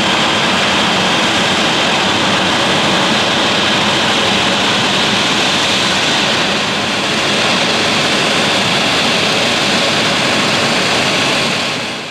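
Embraer 195's two GE CF34-10E turbofan engines running steadily close by, a loud rushing jet noise with a high whine in it, dipping slightly about seven seconds in and fading out near the end.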